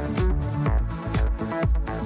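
Electronic dance music with a steady beat, about two beats a second.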